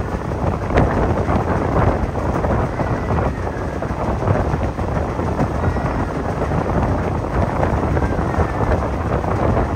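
Passenger train carriage running at speed, heard at an open window: a steady rumble and rattle of wheels on rails, with many small clicks and knocks, and wind buffeting the microphone.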